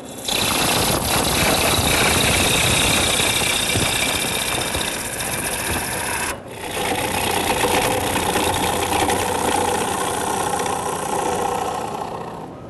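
A half-inch bowl gouge cutting into a spinning green birch log on a wood lathe, a loud, rough, steady shearing of shavings being peeled off while the blank is shaped. The cut stops abruptly for a moment about halfway through, then carries on.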